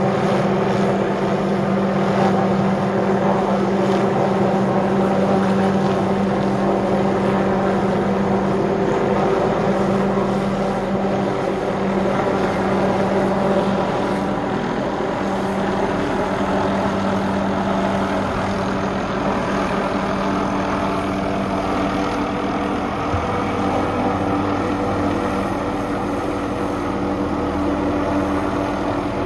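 Small helicopter hovering overhead: a steady drone of rotor and turbine with a constant hum of several tones.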